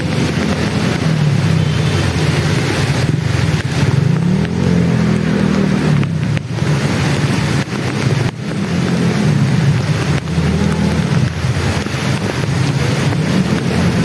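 Floodwater rushing and wind on the microphone, with an engine's low hum running underneath that rises and falls in pitch.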